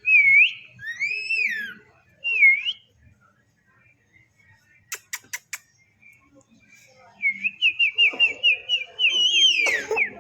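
Clear whistling: a few rising-and-falling whistles in the first three seconds, then four sharp clicks about five seconds in. A fast run of short whistled notes follows, about five a second, ending in a higher whistle near the end.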